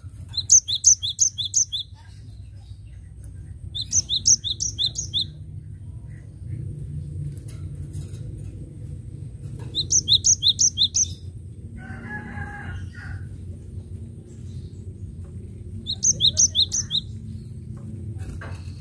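Cinereous tit (gelatik batu) singing: four bursts of quick, high repeated two-note whistles, each about a second long. A chicken calls once in the background about twelve seconds in.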